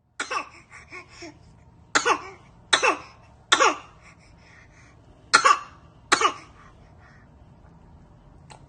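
A baby giving short, deliberate fake coughs, six in all, unevenly spaced and each dropping in pitch. The coughs are put on for play, not a sign of illness.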